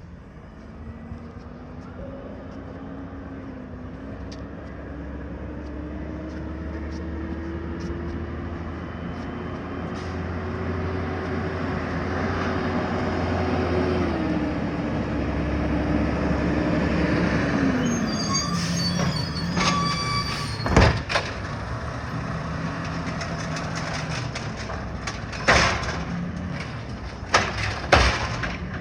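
Green waste garbage truck: its engine tone climbs steadily, holds, then falls away. About two-thirds in there is a brief high squeal, followed by several sharp loud bangs, typical of the truck's lifting arm dumping a curbside cart.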